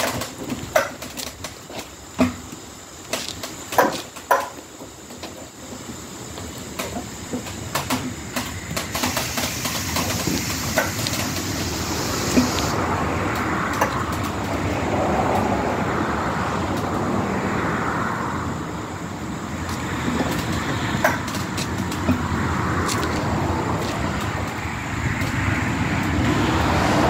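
Hand pallet jack loaded with about 1,500 lbs of welding rod being pushed and pulled over a concrete floor, its wheels rumbling as it rolls. There are sharp clanks and knocks in the first several seconds, then a steady rolling rumble that swells and fades as the load moves back and forth.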